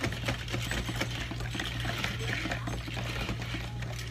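A long plastic spoon stirring ice and liquid in a large plastic cup, with dense quick clicks and rattles of ice against the cup walls. A steady low hum runs underneath.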